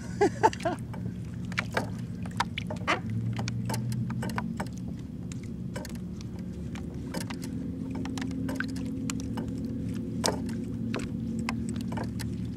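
Small waves slapping against the hull of a plastic fishing kayak: irregular short clicks and knocks over a steady low hum.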